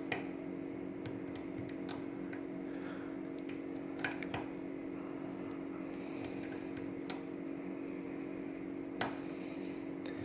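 Faint, irregular small metallic clicks of a dimple flag pick working the pins of a Goal D9 dimple lock under a tension wrench, over a steady background hum.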